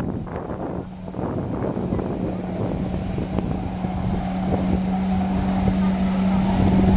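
Personal watercraft engine running steadily at high power to drive a Flyboard through its hose, a constant-pitched drone that grows gradually louder, over the rush of water jets spraying onto the water.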